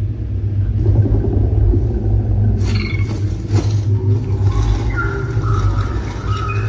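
Cinematic sci-fi sound design through a Logitech Z-2300 2.1 speaker system: a deep, steady subwoofer rumble with two sharp hits about two and a half and three and a half seconds in. Thin wavering tones come in over the rumble during the last two seconds.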